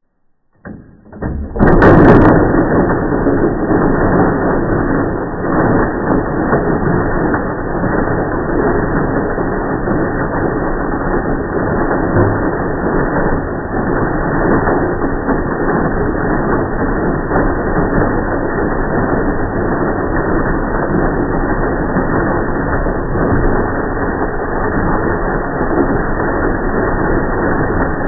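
Food processor starting up about a second in, then running steadily as its blade grinds dry butter biscuits to crumbs. The sound is slowed down along with the slow-motion footage, so it comes out as a low, dense rumble.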